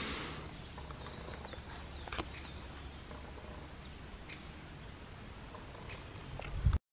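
Quiet outdoor woodland ambience with a few faint bird chirps a second or two in and some small clicks. A short louder rustle comes near the end, then the sound cuts off.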